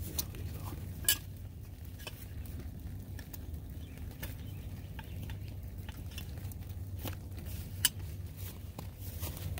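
Light metal clinks and scrapes from a stainless baking tin and its wire rack handled with leather gloves in campfire ash, with two sharper clinks, one about a second in and one near the end, over a steady low rumble.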